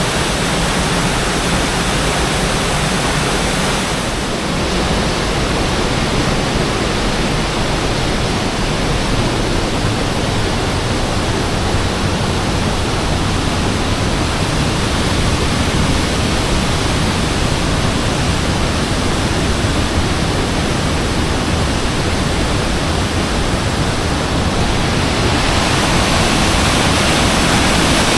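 Waterfall: a loud, steady rush of falling water, a little brighter and louder near the end.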